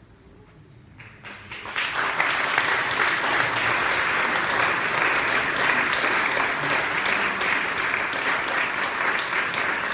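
Audience applauding: the clapping starts about a second in, swells quickly and then holds steady.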